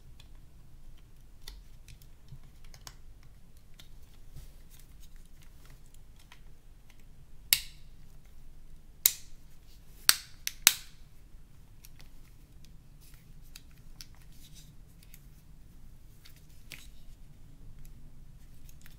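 Small plastic clicks and snaps of a Nokia N91's casing parts being handled and pressed together during reassembly, with four loud sharp snaps between about seven and eleven seconds in.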